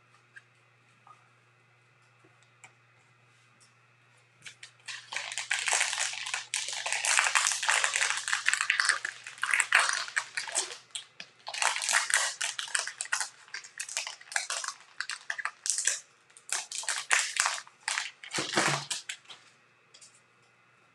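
The wrapper of a 2020 Bowman baseball card fat pack crinkling and tearing as it is opened by hand, in an irregular string of crackly bursts. It starts about four seconds in and stops shortly before the end.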